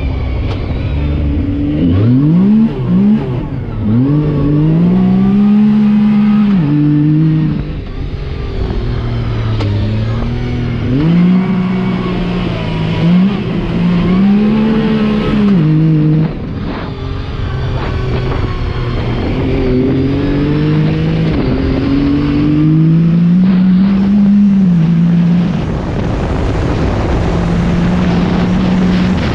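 Yamaha YXZ1000R SS SE side-by-side's three-cylinder engine pulling hard, its pitch climbing and dropping again and again as it accelerates and shifts through the gears.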